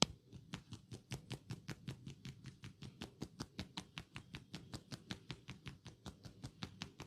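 Massage tapping: hands striking the head in quick, even strokes, about six or seven a second, with one sharper strike at the start.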